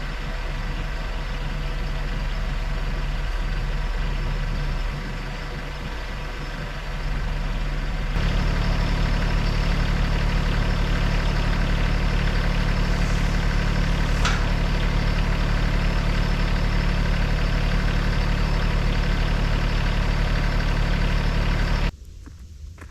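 A vehicle engine running steadily, its note stepping up and getting louder about eight seconds in, with a short high squeak midway, then cut off abruptly near the end.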